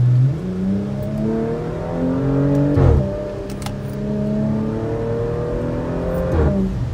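2021 Porsche Macan GTS's 2.9-litre twin-turbo V6, breathing through an MBRP cat-back exhaust and heard from inside the cabin, accelerating hard. The engine note climbs through a gear, drops sharply as the PDK gearbox upshifts about three seconds in, then climbs again and upshifts once more near the end.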